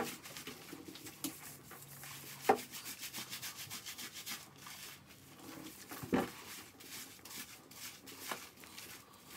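Hands rubbing and lathering shampoo into a wet dog's coat: quiet, quick, repeated rubbing strokes, with two brief louder sounds about two and a half and six seconds in.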